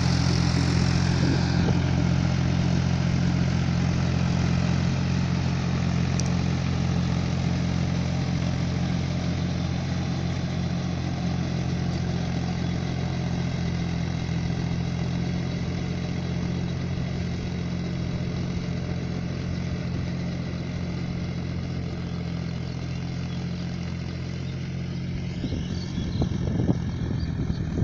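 Powertrac Euro 45 Plus tractor's three-cylinder diesel engine running steadily under load while driving a rotary tiller, slowly growing fainter. A few irregular knocks come in near the end.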